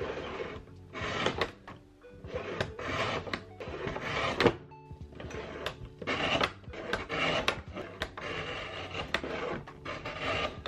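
Sliding-blade paper trimmer cutting paper: the cutting head is run along its rail in repeated rasping strokes, about one a second, with sharp clicks between strokes as the paper is repositioned. Background music plays underneath.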